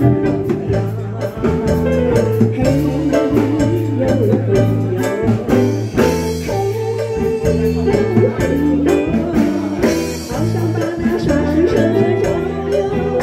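A woman singing a song into a microphone, amplified, over live band accompaniment of electric guitar and keyboard with a steady beat.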